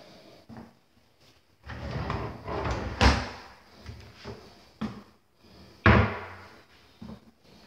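Bathroom vanity cabinet doors being opened and shut: a stretch of rubbing and rattling, then a sharp bang about three seconds in, lighter knocks, and a second sharp bang near six seconds.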